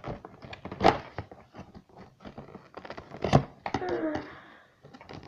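A toy and its packaging being handled: scattered small clicks and rustles, with two sharp knocks about one second and three and a half seconds in.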